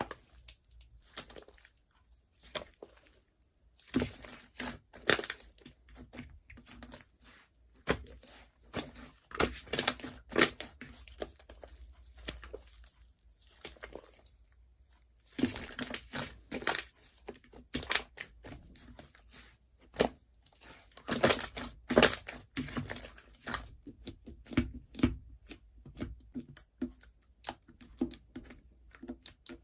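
Slime being squished and pressed by hand, giving bursts of crackling and popping clicks with short pauses between handfuls.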